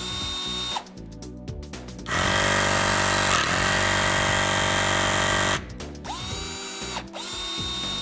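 Knipex eCrimp electromechanical crimping pliers whining through a crimp cycle, the motor rising in pitch and then holding. About two seconds in, a louder cordless electrohydraulic crimping tool runs with a steady drone for about three and a half seconds. Near the end the eCrimp's quieter motor whine comes back.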